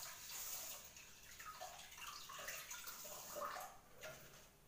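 Water from a kitchen tap running and splashing in a pot at the sink. It stops near the end.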